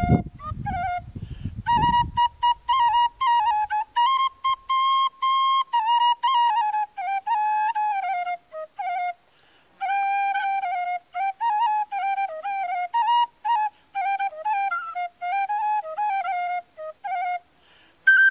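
Music: a solo flute playing a melody in short phrases of quick, ornamented notes.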